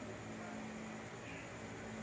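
Quiet room tone: a faint, steady hiss with nothing distinct standing out.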